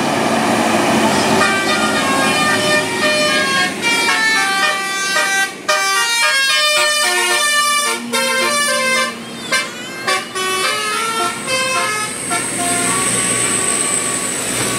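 Tour bus 'telolet Basuri' multi-tone horn playing a quick tune of short stepped notes, the pitch jumping from note to note.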